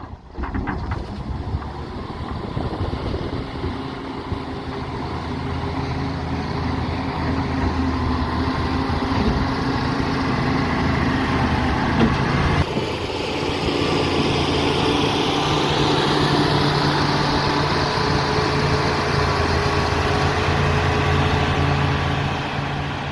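Heavy diesel engine of construction machinery running steadily, with a sudden change in its note about halfway through.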